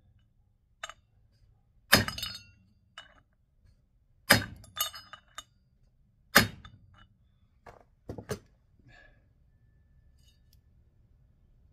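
Hammer blows on the old bearing's outer sleeve, driving a new bearing down into an aluminum snowmobile wheel hub. There are four main metallic strikes about two seconds apart, each ringing briefly, with a few lighter taps between them. The bearing is not yet fully seated.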